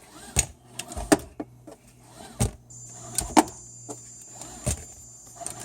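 Seat belt in a 2004 BMW X5 retracting and being worked, its webbing freshly treated with silicone-based polish to cure slow retraction, with a string of sharp, irregularly spaced clicks and knocks from the belt hardware. A thin, high, steady tone sets in about three seconds in.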